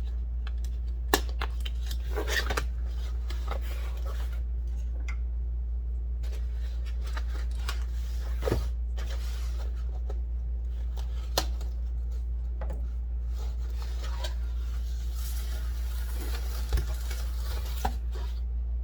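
Unboxing handling sounds: scattered clicks, knocks and light metallic clinks of loose aluminum case parts, with a stretch of rustling packaging about fifteen seconds in, over a steady low hum.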